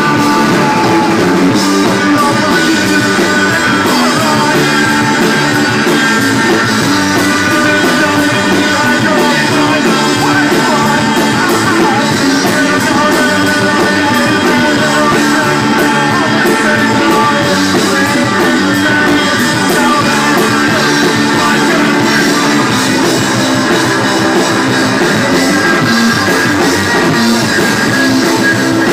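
Rock band playing live and loud: electric guitar, bass guitar and a Mapex drum kit, with a singer at the microphone.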